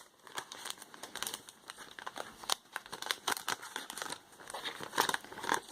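Paper cards and their plastic packaging being handled: a run of light rustling, crinkling and small clicks.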